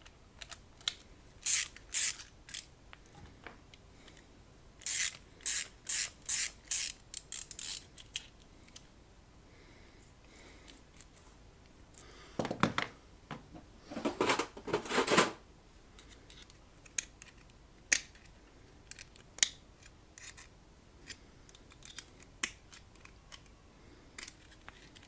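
Metal clicks, clinks and scraping from a screw-type chassis punch being taken apart by hand, in a few bouts with the loudest a little past the middle. Near the end, pliers work at the cut-out metal ring held in the punch's die.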